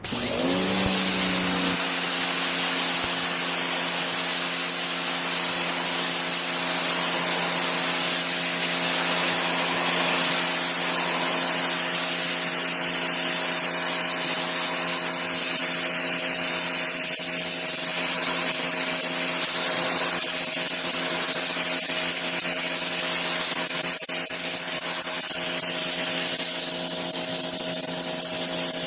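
Electric pressure washer starting up: its motor hum rises in pitch for about a second, then runs at a steady pitch under a strong hiss of spraying water.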